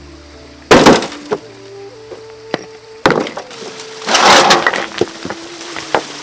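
Three loud cracking, crunching impacts, the kind of sound made by wood splintering or breaking, with smaller knocks between them, over faint background music.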